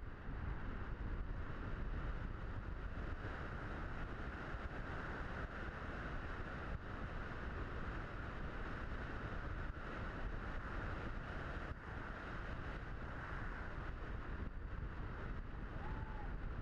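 Steady rush of wind and airflow picked up by the onboard camera of a Blitz RC Super Skysurfer RC plane in flight, buffeting low down with a hiss higher up.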